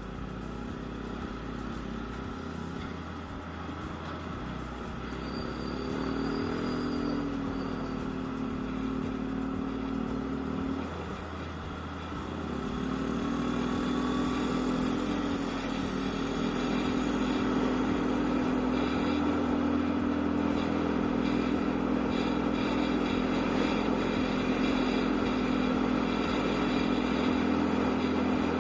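Yamaha Aerox scooter engine running under way, a steady hum that eases and picks up a little, growing louder from about halfway through.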